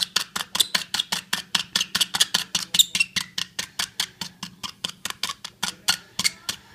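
A thin metal needle punching holes in two layers of aluminium foil stretched over a hollowed-out apple: a fast, even run of sharp ticks, about six a second, with a faint steady hum underneath.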